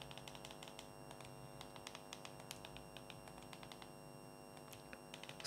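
Faint rapid clicking of buttons or keys being pressed, several clicks a second, over a steady low electrical hum.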